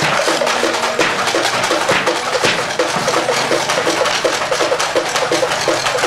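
Male Kecak chorus chanting a rapid, interlocking "cak-cak" rhythm, over a lower sustained chanted line.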